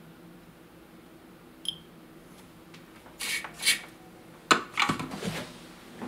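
Workbench handling noises as the soldering iron is taken away from the board: a small click, a couple of short scrapes, then a sharp clack about halfway through with some rattling after, over a faint steady hum.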